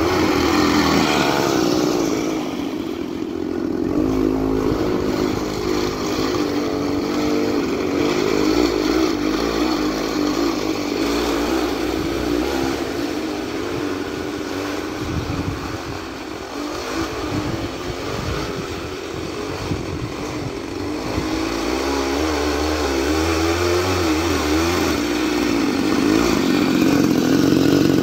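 Two-stroke Ural chainsaw engine driving a homemade single-wheel snow vehicle, running under load. The engine speed rises and falls, easing off about halfway through and picking up again near the end.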